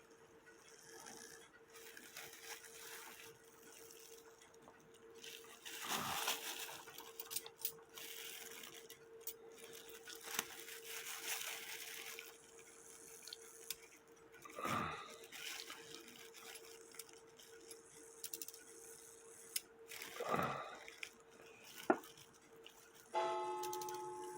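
Small metal parts of an antique cuckoo clock movement being handled and fitted: scattered light clicks and taps, with a few brief louder rustling knocks, over a faint steady hum. Near the end a sharp metallic strike rings on briefly with a clear tone.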